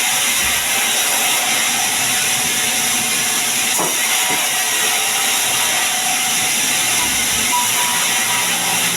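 Sawmill saw cutting a sengon log into beams: a loud, steady hiss of the blade through the wood, with one brief knock a little before the middle.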